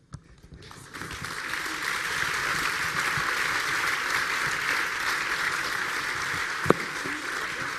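Audience applause, starting about a second in and holding steady. A single sharp knock comes near the end.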